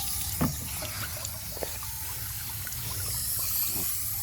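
Water trickling and splashing, likely from the garden hose used to rinse the dog, with a few light knocks and one brief sharp sound about half a second in.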